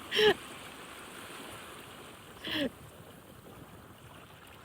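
Steady rush of flowing river water, with two short voiced exclamations breaking in, one just after the start and one about two and a half seconds in.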